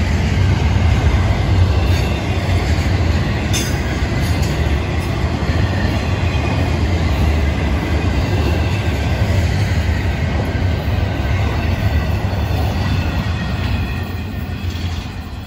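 Freight train's double-stack intermodal well cars rolling past: a steady, loud wheel-on-rail rumble with faint high wheel squeals and one sharp click about four seconds in. It fades near the end as the last cars move away.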